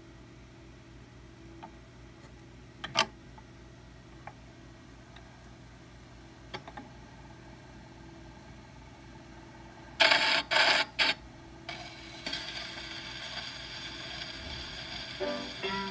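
A 78 rpm shellac record on a turntable before the song begins: a faint steady hum with a few small clicks, then about ten seconds in a short cluster of loud scraping knocks as the stylus is set down on the spinning disc. Steady surface hiss from the lead-in groove follows, and the music starts right at the end.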